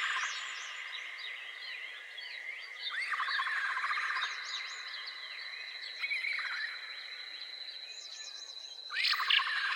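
Forest ambience: many small birds chirping and twittering over a steady high-pitched insect drone, with a rapid pulsed trill that recurs about every three seconds.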